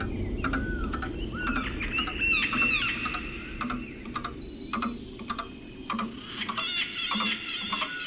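Tropical rainforest evening chorus: many short, arched whistled calls and chirps from birds or frogs over a steady high insect drone, with a repeated warbling call coming in near the end.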